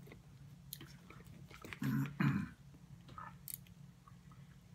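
Eating sounds at a table: quiet chewing and a few light clicks of cutlery, over a steady low hum. About two seconds in there are two short, low, louder sounds in quick succession.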